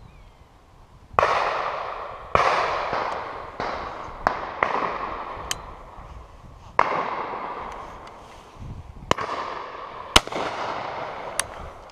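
Shotgun shots fired in quick, irregular succession, about ten in all, some close and loud and others fainter. Each of the loud ones is followed by a long fading echo.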